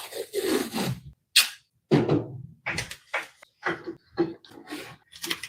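Irregular handling noises: a scrape in the first second, then a quick series of knocks, taps and rustles as something is shifted and handled by hand.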